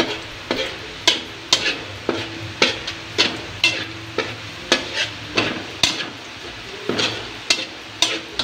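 Metal spatula scraping and tapping around a stainless steel wok about twice a second, over the steady sizzle of minced garlic frying in hot oil as it is sautéed toward golden brown.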